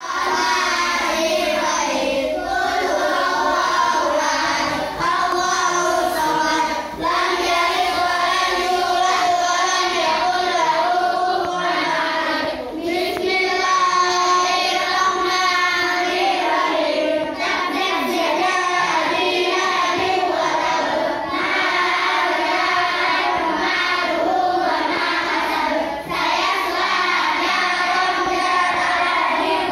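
A class of children reciting short surahs of the Qur'an aloud in unison, a chanted group recitation (tadarus) of many young voices, with short breaks every few seconds.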